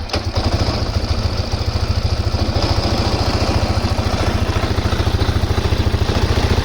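2009 Polaris Sportsman 550 ATV's single-cylinder engine idling just after starting, with a steady, even pulse. The owner finds it strange how the machine is shaking.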